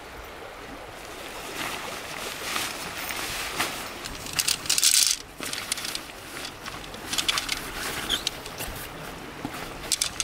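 Nylon tent fabric and its stuff sack rustling and crinkling in bursts as they are handled, loudest about halfway through, over the steady rush of a small stream.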